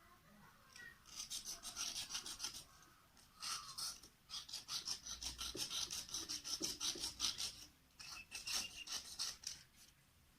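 Knife blade scraping the insulation off the ends of ceiling-fan lead wires, bared so the wire will make contact. The raspy strokes come quickly, about four a second, in four runs with short pauses between.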